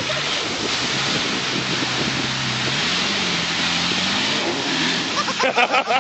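Off-road 4x4's engine pulling hard as it drives down into and through a mud pit, its pitch rising about halfway through, over the steady rush of mud and water thrown up by the tyres.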